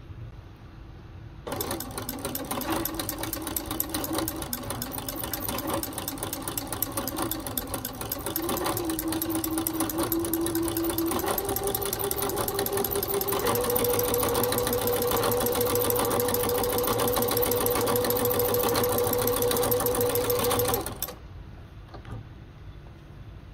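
Singer portable sewing machine running with a ruffler foot attached, gathering fabric into medium ruffles: the motor starts about a second and a half in and runs with a rapid ticking of stitches. Its hum climbs in steps as the machine speeds up, then it stops shortly before the end.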